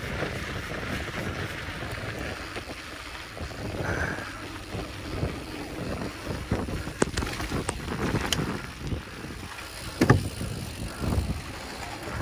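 Mountain bike riding a dirt trail: wind rushing over the microphone, with tyre noise and scattered knocks and rattles from the bike over bumps. The loudest is a sharp knock about ten seconds in.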